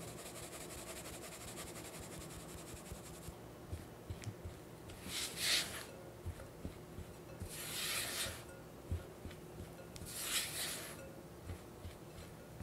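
Cake flour sifted through a fine stainless mesh sieve, a fast fine rasping for the first three seconds or so. Then a silicone spatula cuts the flour into the butter batter in a glass bowl: three slow scraping strokes about two and a half seconds apart, with soft knocks between them.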